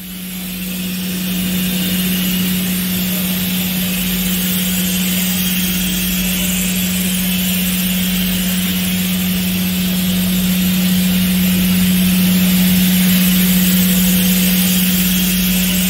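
DMG MORI DMC 635V ecoline vertical machining centre running: a steady mechanical hum on one low tone with a hiss over it.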